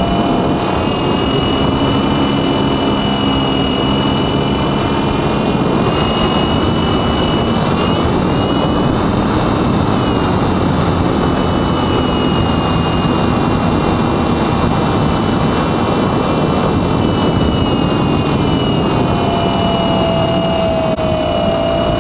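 Brushless electric motor and 9x7.5 propeller of a Mini Talon model plane whining at cruise throttle under a heavy rush of airflow over the onboard microphone. The whine's pitch swells briefly about nine seconds in and settles lower near the end.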